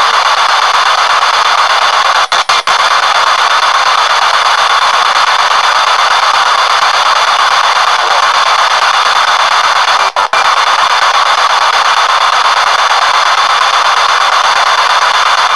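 PSB7 spirit box sweeping through radio stations over an external speaker: loud, steady static hiss that cuts out very briefly a few times, three quick gaps about two seconds in and one about ten seconds in.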